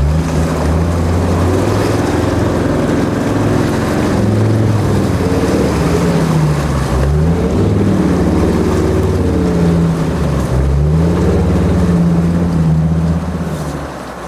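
Land Rover Defender 90's Td5 five-cylinder turbodiesel engine working hard through deep, fast-flowing floodwater, with water rushing and washing around the vehicle. The revs sag and pick up again twice, then the engine note falls away near the end.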